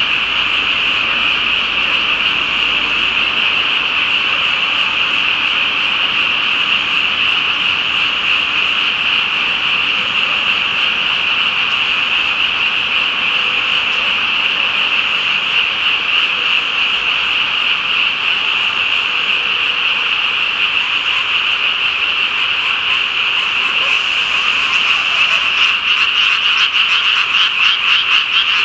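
A dense chorus of frogs calling without a break, a steady high-pitched trilling mass of many voices. Near the end a louder, rapidly pulsing set of calls joins in close by.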